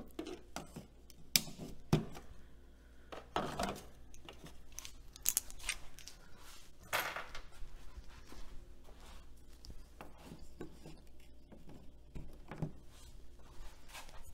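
Scattered clicks, taps and a few short scrapes of hands and tools working on the stereo console's slider control panel.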